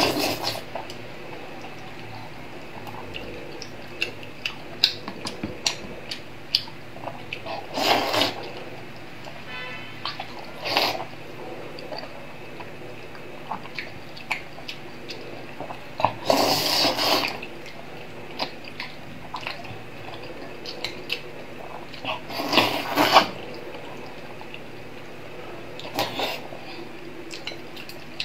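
Close-up mouth sounds of eating stewed pork skin: wet chewing and sucking with many small smacks and clicks. There are three louder, longer wet bursts, near the middle and about two-thirds of the way in.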